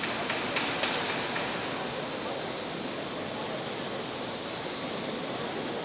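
Steady hiss of ambience in a vast marble basilica, with a faint blur of distant voices and a few soft clicks in the first second.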